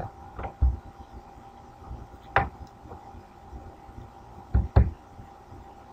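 A few short, soft knocks and clicks: one about half a second in, a sharper click in the middle, and two close together near the end. A faint steady hum runs underneath.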